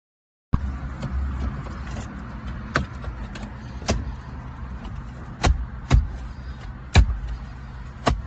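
Plastic dashboard trim panel being pressed and snapped into place: a series of sharp clicks and knocks, about seven in all, over a low steady hum.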